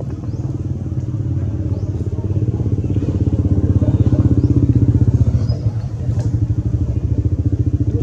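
A small engine running close by, a rapid even pulsing that grows louder around the middle and eases off again.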